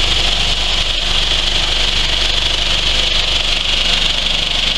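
Vibrating-screen coffee bean sorting machine running steadily: a loud, even motor hum under a continuous rattling hiss of green coffee beans shaking across the wire-mesh sieves.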